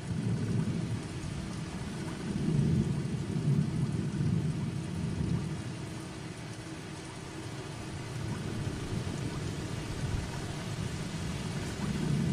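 Steady heavy rain, with low rolls of thunder swelling about two seconds in and again near the end.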